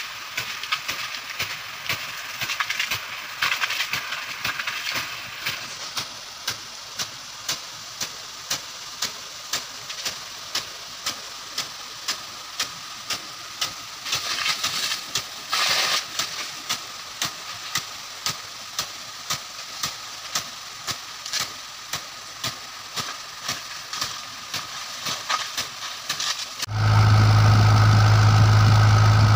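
Jain rain gun sprinkler throwing a high-pressure jet of water: a steady hiss of spray with regular sharp clicks, about one and a half a second, from its swinging impact arm stepping the gun round. Near the end this cuts off suddenly and a loud, steady low hum takes over.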